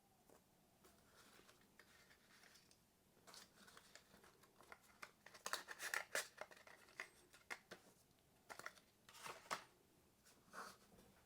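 Paper and cardboard packaging being handled by hand: a run of short rustles and clicks starting a few seconds in, loudest around the middle.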